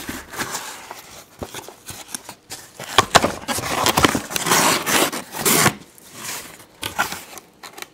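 Cardboard box being opened by hand: the flaps are pulled apart and the cardboard scrapes, crackles and tears in irregular bursts, busiest in the middle.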